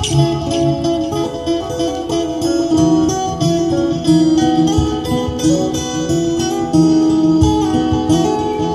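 Taylor acoustic guitar fingerpicked, a plucked melody over ringing chords and a steady low beat, layered live with a looper pedal.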